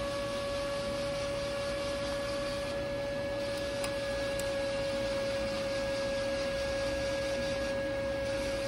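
Steady electronic whine at a single pitch, with fainter higher tones over a low hiss, from a powered Honeywell weather radar indicator on its bench test setup. A couple of faint clicks come about four seconds in as its mode knob is turned.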